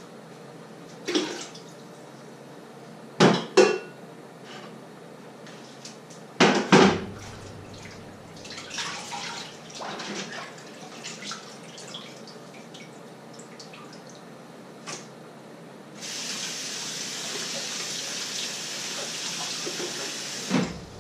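Washing up at a kitchen sink: dishes and pans clattering, with several sharp knocks and then lighter clinks, followed by the tap running steadily for about five seconds and shutting off with a knock near the end.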